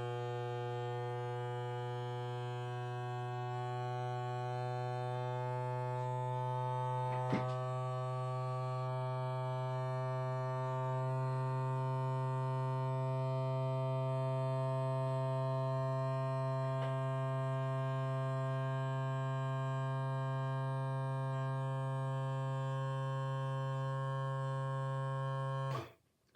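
Electric mason jar vacuum sealer's small pump motor running with a steady buzzing hum while it draws the air out of a mason jar under its lid attachment, with a single click about seven seconds in. Near the end the hum cuts off suddenly: the sealer has shut itself off automatically, a sign that the vacuum is complete.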